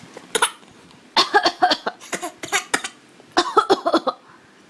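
A baby coughing: one short cough near the start, then three fits of several quick coughs each.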